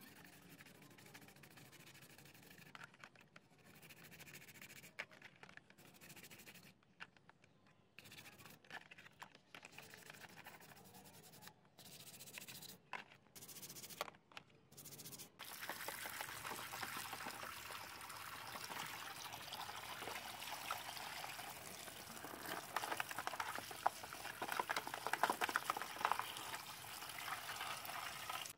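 Toothbrush scrubbing plastic phone frames in a tub of soapy water, faint and broken by several dropouts. About halfway in, a steady rush of water splashing and pouring starts suddenly and grows louder near the end as the tub is tipped out.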